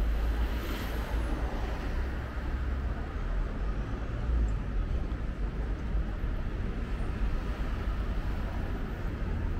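Street traffic noise: a steady low rumble of road vehicles with a haze of road noise.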